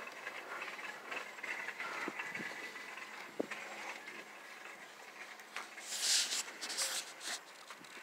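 Seat-belt webbing sliding and clothing rustling as a person wriggles against the belts in a car's back seat, with a single light click about three and a half seconds in and louder rustling around six to seven seconds in.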